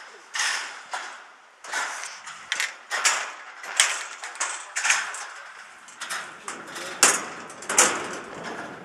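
Footsteps on the steel walkway of a railroad trestle, a scuffing, scraping step every half second to second.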